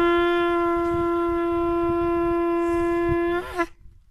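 Conch shell (shankh) blown in one long, steady note rich in overtones, ending with a brief waver about three and a half seconds in. A low rumbling noise runs underneath.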